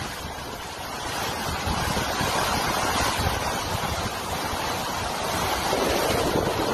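Hurricane winds blowing hard and buffeting the microphone: a continuous loud rushing noise that swells louder after about a second.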